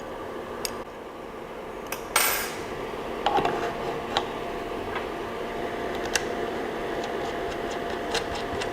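Small metal clicks and clinks, with a short metallic clatter about two seconds in, as an Allen key loosens the screw on the resin printer's build plate for levelling.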